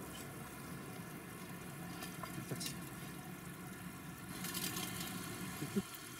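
Pork and onions in soy sauce sizzling in a frying pan over a small CANWAY wood-burning stove, its fire burning strongly beneath. A few light clicks come about two seconds in as the pan is stirred, and the sizzle brightens briefly past the four-second mark.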